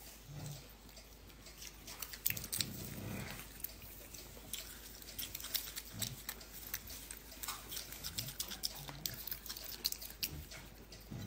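Black-capped capuchin monkey biting and chewing asparagus spears: a run of small, irregular crunches and clicks.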